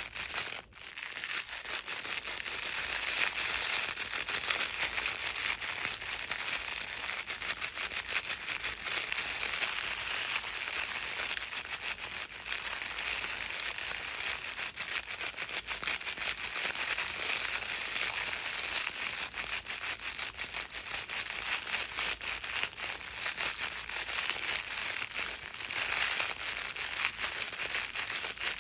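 A baby's crinkle book rustled continuously by hand, its crinkly pages making a dense, steady crackling with a brief pause about a second in.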